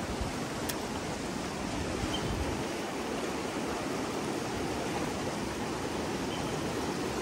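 Animas River rushing past, a steady loud roar of fast-flowing water.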